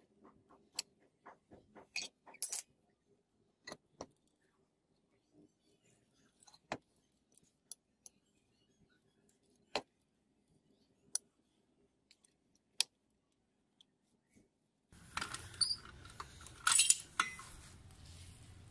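Hand pipe cutter being turned around a steel pipe held in a pipe vise: faint, irregular metallic clicks and ticks as its cutter wheel and rollers work around the pipe. Near the end a steady hum comes in, with a few louder metal clinks as the cut finishes and the ring of pipe comes free.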